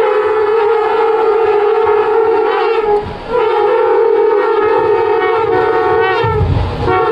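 Many conch shells (shankh) blown together in loud, long, steady blasts, a short break about three seconds in and another near the end.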